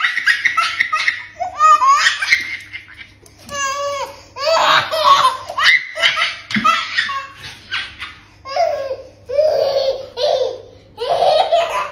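A baby laughing hard at a dog, in repeated bursts of laughter with short breaths between them.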